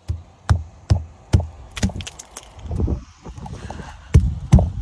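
Crusted ice cracking under a run of sharp knocks, about two a second at first, with two louder ones near the end.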